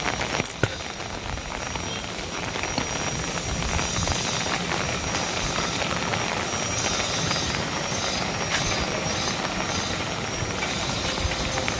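Heavy rain falling steadily, with strong wind rumbling on the microphone; a couple of sharp ticks about half a second in.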